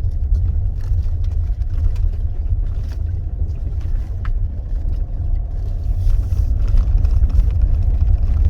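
A car driving slowly over a dirt track: a steady low rumble of engine and tyres, with faint scattered ticks.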